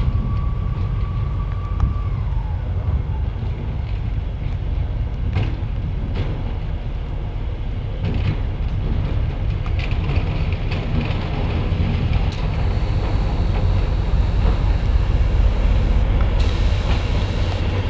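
Diesel locomotive engine running with a steady low rumble that grows louder after about twelve seconds, with a few sharp clicks. A steady high tone at the start falls away about two seconds in.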